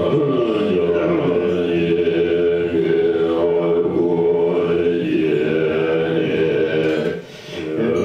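Tibetan Buddhist monks chanting together in a low, sustained group chant, breaking off briefly about seven seconds in.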